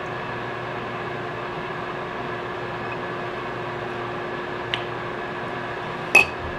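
Steady fan-like hum with a faint constant tone. A light click comes near the end, then a sharper clink as a stemmed glass meets the granite countertop.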